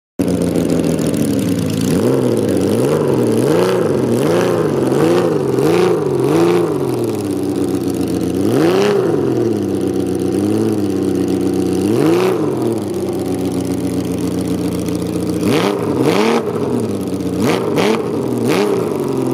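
Custom motorcycle engine idling and being revved with throttle blips: about two quick blips a second for the first several seconds, then single, bigger revs a couple of seconds apart.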